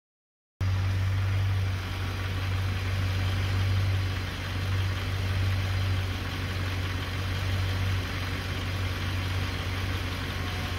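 Land Rover Discovery 2's rebuilt Rover V8 idling steadily at working temperature, starting about half a second in. No tapping is heard from the valve gear: the new hydraulic tappets have cured the tap.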